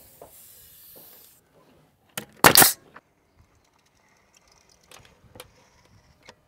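Pneumatic nail gun firing once, about two and a half seconds in, a sharp bang driving a nail into wood trim with a small click just before it. A brief high hiss of air comes in the first second, and a few faint clicks and taps follow near the end.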